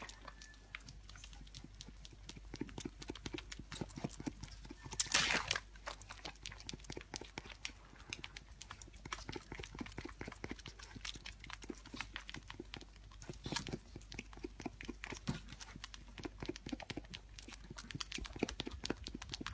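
Lamb suckling from a feeding bottle: a fast, irregular run of wet sucking clicks and smacks at the rubber teat. A louder rush of noise comes once, about five seconds in.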